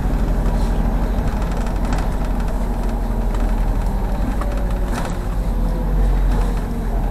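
MAZ diesel city bus running and driving, heard on board: a steady low engine rumble with a few brief clicks or rattles.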